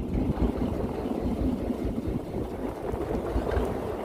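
A fishing boat's motor running as the boat gets under way, a rough low churning noise that swells at the start.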